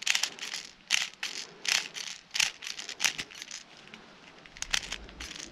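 Leaves and twigs rustling and crackling right against the microphone in an irregular run of sharp crackles, with a short lull near the end.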